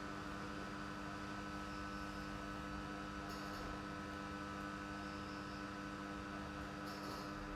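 Steady electrical hum with a few constant tones, interrupted by two brief soft hissy sounds, about three seconds in and near the end.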